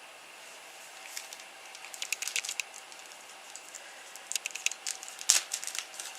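Small plastic baggie being handled and opened, with irregular crinkles and small clicks in clusters and one sharper click about five seconds in.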